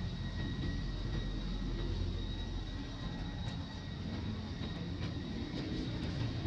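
Steady low rumble with a faint, thin, high steady whine above it.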